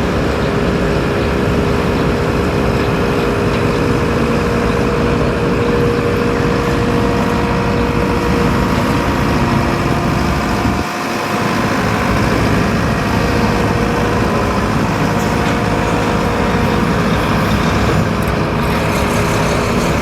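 Heavy road-construction machinery engines running steadily under load, a dense diesel rumble with a steady hum, broken by a brief drop about halfway through.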